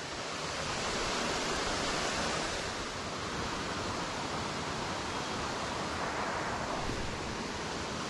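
Steady, even rush of water from a small creek waterfall pouring into its pool.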